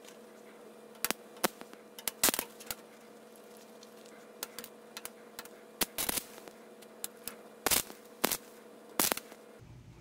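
Stick welding rod in a jumper-cable clamp, run off two 12-volt car batteries in series for 24 volts, arcing against steel: irregular sharp crackles and pops, about a dozen, as the arc catches and dies. The arc is hard to start and keep without the rod shorting out.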